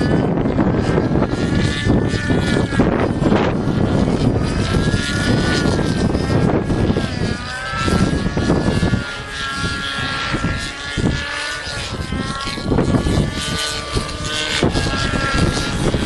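Thunder Tiger Raptor 50 SE nitro RC helicopter flying, its two-stroke glow engine and rotors giving a whine that rises and falls in pitch as it manoeuvres. Heavy wind rumbles on the microphone, easing a little about halfway through.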